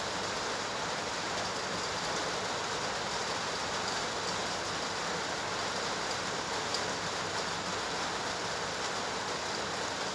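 Steady, even rushing background noise, with a few faint light ticks, one a little sharper about two-thirds of the way through.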